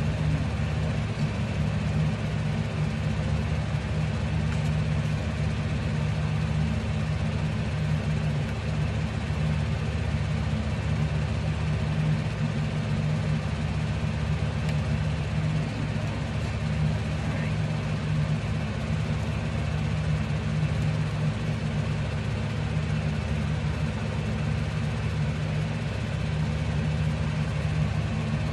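Steady low machine hum that holds the same pitch and level throughout.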